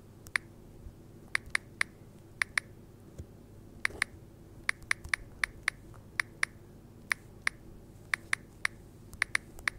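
Typing on a Samsung tablet's on-screen keyboard: a string of short, sharp key-press clicks at an uneven pace, often two or three in quick succession.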